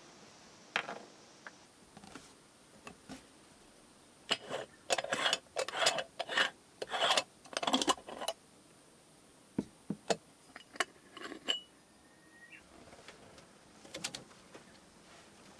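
Rustling and knocking of things being handled at close range: a quick run of scrapes and knocks in the middle, scattered clicks before and after, and two brief high beeps near the end.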